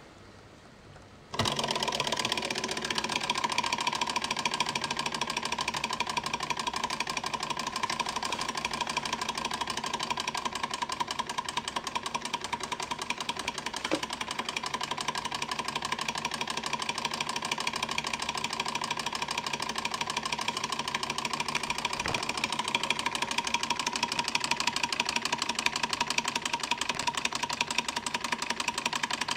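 Bing 135/11 toy Stirling hot-air engine coming in suddenly about a second and a half in, then running with a fast, even clatter and a steady whine.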